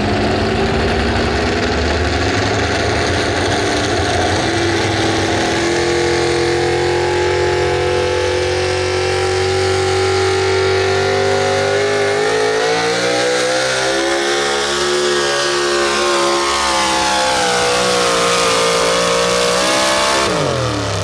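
Modified four-wheel-drive pulling truck's engine running hard under load, its pitch climbing steadily for about twelve seconds. The pitch then dips, rises again and slides down, before dropping sharply near the end.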